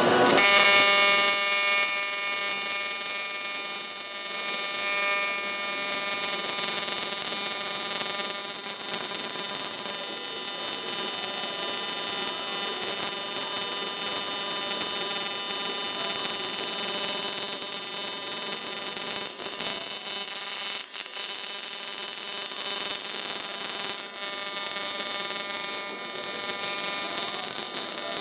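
Arc welder buzzing steadily while welding the aluminum transmission snout seam, with a short break about three-quarters of the way in.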